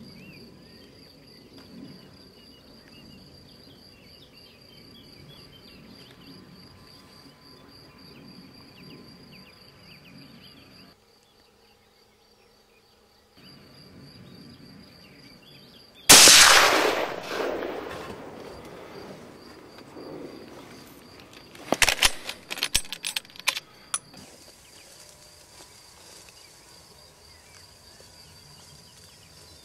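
A single hunting-rifle shot about halfway through, its report echoing and dying away over a few seconds, followed some seconds later by a quick cluster of sharp clicks and knocks. An insect's steady high trill runs underneath.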